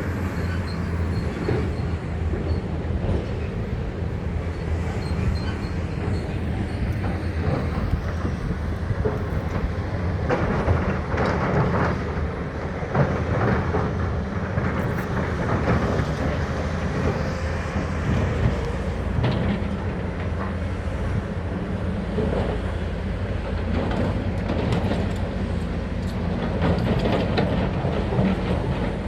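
Hitachi 870 hydraulic excavator's diesel engine running steadily under load, with repeated clanks and rattles of steel and rock as it works, thickest through the middle of the stretch and again near the end.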